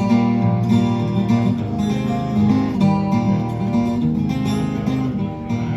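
Acoustic guitar played in a steady picked-and-strummed pattern: an instrumental break between sung verses of a folk song.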